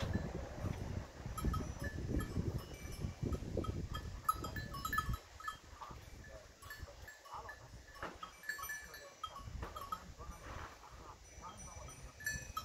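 Peacock goat grazing: short ripping sounds of grass being torn off and chewed, repeated throughout. A low rumble runs under the first five seconds, and short ringing tones like distant bells come in throughout.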